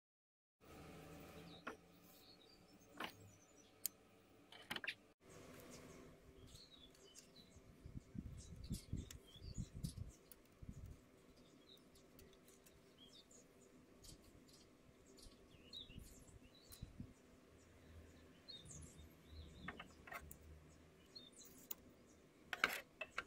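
Quiet outdoor background with small birds chirping on and off, and soft handling bumps and rustles of yarn and wooden sticks. Near the end, a couple of sharp snips of scissors cutting yarn.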